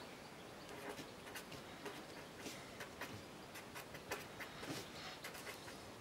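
A pen scratching on paper as block letters are written by hand: faint, short, irregular strokes, several a second, starting about a second in.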